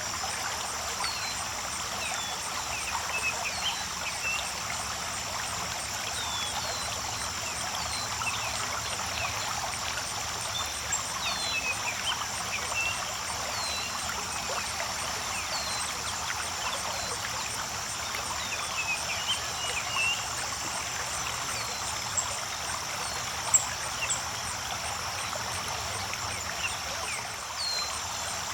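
Creek water flowing and trickling steadily, with a steady high chirring and scattered short high chirps over it. One sharper tick stands out about two-thirds of the way through.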